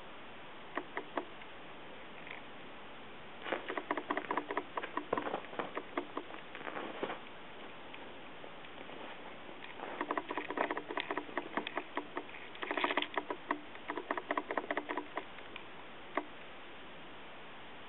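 Frilled dragon at a hornworm: two bursts of rapid clicking and pattering a few seconds each, with a few single clicks between, over a steady hiss.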